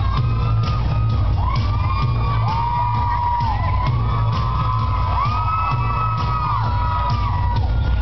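Loud rock-style music with a heavy, steady bass beat, with shouts and whoops from the crowd.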